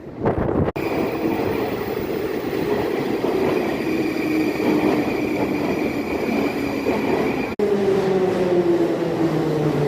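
A train running with a steady rumble and hum. After a sudden break about three quarters of the way in, a motor whine falls slowly in pitch as the train slows.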